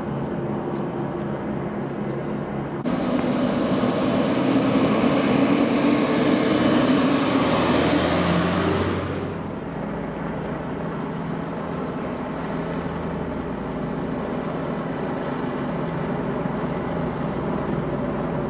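Motor vehicle engines running, with traffic noise. A louder surge of vehicle noise starts suddenly about three seconds in and fades away at about nine seconds, over a steady engine hum.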